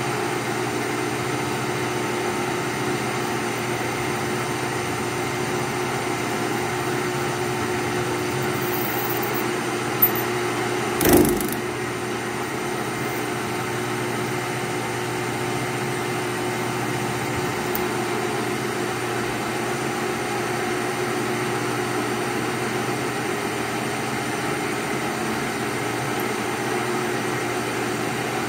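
Metal lathe running steadily, its chuck spinning a .50 BMG bullet while the cutting tool turns away the bullet's jacket. A sharp tick about ten seconds in and a brief louder burst about a second later.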